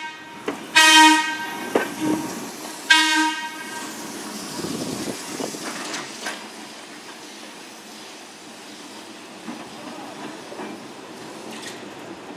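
Air horn on the T.M.E.R.&L. Co. electric car D23 sounding single-note blasts: the end of one at the start, then two short ones about a second in and three seconds in. The car then rolls away over the rails with a steady low rumble.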